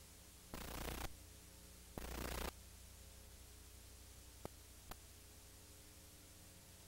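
Steady low hum and hiss of an old videotape recording, broken twice by abrupt half-second bursts of static, with two faint clicks a little later.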